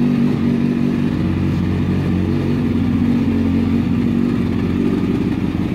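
Kawasaki ZX-10R sportbike's inline-four engine idling steadily.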